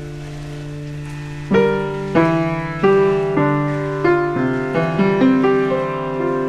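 Instrumental background music: a held chord, then from about a second and a half in, single piano notes struck one after another about every half second, each fading away.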